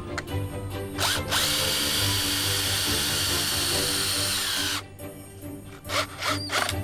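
Power drill driving a screw into a 2x4 board: one long steady run of about three and a half seconds, with short bursts before and after.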